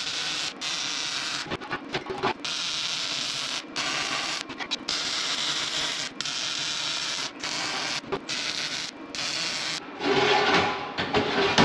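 MIG welding arc crackling steadily as a bead is run on steel tubing with a Lincoln Electric Power MIG welder, in runs broken by several short gaps where the trigger is let off. The arc stops about ten seconds in.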